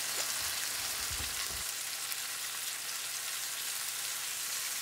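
Onions, chopped tomatoes and freshly poured soy sauce sizzling in a hot enamelled braising pot, a steady hiss. A brief low rumble about a second in.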